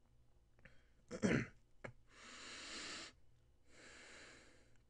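A man breathing close to the microphone: a short, louder mouth or throat noise about a second in, then two long breaths of about a second each.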